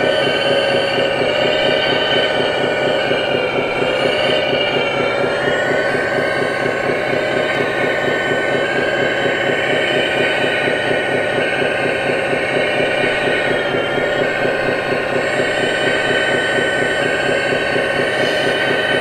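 Scale RC Hitachi Zaxis 330 hydraulic excavator's hydraulic pump whining steadily, its pitch dipping and recovering a few times as the boom and bucket are worked under load.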